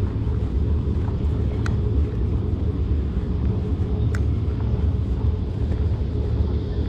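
Steady low rumble with a faint steady hum above it, broken by a few faint clicks.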